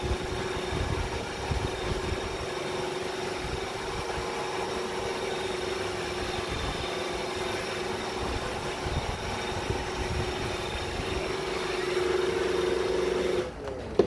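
iRobot Roomba i7 robot vacuum running, its suction motor giving a steady whine over a noisy hum. It cuts off abruptly near the end.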